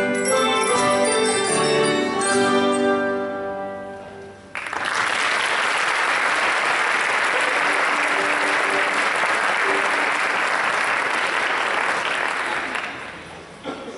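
A student ensemble of mallet instruments and keyboards plays the last bars of its piece and ends on a ringing chord that fades. About four and a half seconds in, audience applause breaks out suddenly, holds steady, then dies away near the end.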